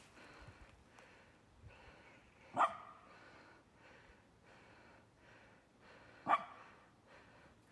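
A dog barking twice, two single short barks a little under four seconds apart.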